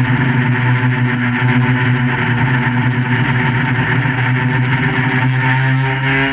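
QAV400 quadcopter's brushless motors and propellers buzzing steadily in flight, a stack of steady tones whose pitch shifts slightly near the end.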